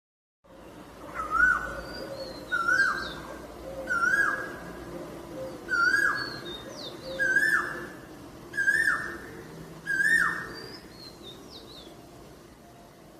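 Asian koel (koyal) calling its repeated "ku-oo" call, seven times at about one and a half second intervals, stopping about ten seconds in. Fainter, higher chirps of other small birds sound along with it.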